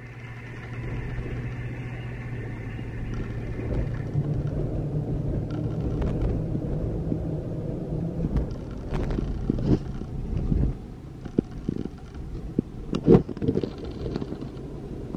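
Road noise inside a moving car: a steady engine hum and tyre rumble, with a few sharp knocks in the second half.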